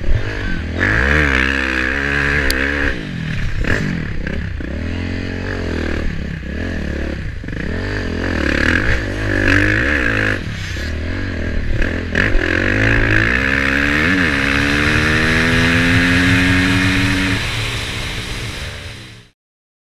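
Dirt bike engine heard on board, revving up and down repeatedly as the rider works the throttle and gears. Later it pulls steadily with its pitch slowly rising, then the sound fades out near the end.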